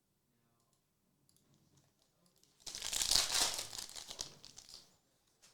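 Trading-card pack wrapper being torn open and crinkled: a burst of crinkling and tearing starts about two and a half seconds in and dies away after about two seconds.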